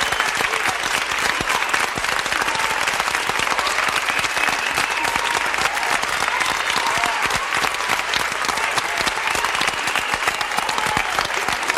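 A crowd applauding with dense, steady clapping and voices cheering over it.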